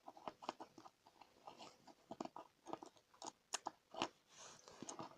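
Plastic Lego bricks clicking and rattling as they are handled and pressed together: a string of faint, irregular clicks.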